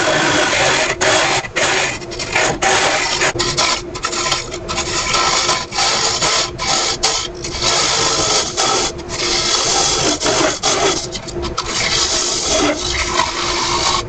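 Teardrop scraper shearing the inside wall of a spinning ashe juniper hollow form on a wood lathe, smoothing the ridges left by hollowing. It makes a steady hiss broken by many short gaps as the tool is eased on and off the wood, with the lathe's faint hum underneath.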